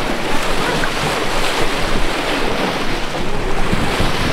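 Wind buffeting the microphone over the rush of sea water along a moving boat, a loud, steady noise.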